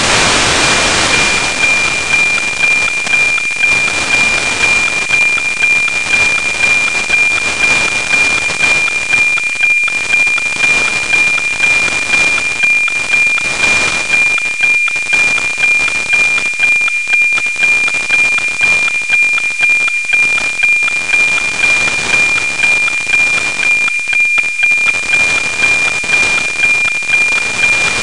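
NOAA 19 weather satellite's APT downlink on 137.1 MHz, FM-demodulated by an SDR receiver: a steady 2400 Hz tone that ticks about twice a second, once per image line, buried in heavy static hiss. The hiss comes from a weak signal on a low pass through an antenna not tuned for 137 MHz.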